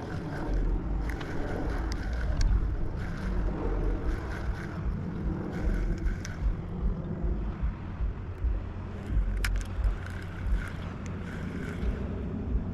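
Uneven low rumble of wind buffeting the microphone, with a single sharp click about nine and a half seconds in.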